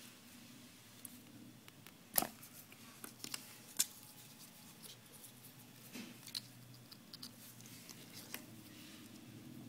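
Faint handling sounds of needle-nose pliers and fingers working fishing line on a small homemade float: scattered small clicks and ticks, the sharpest about two seconds in, over a low steady hum.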